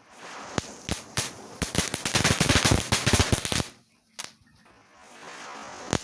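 555 firecrackers going off in a chain: a few separate sharp bangs, then a dense rapid crackle of many exploding together for about two seconds, then a brief lull and one more bang near the end.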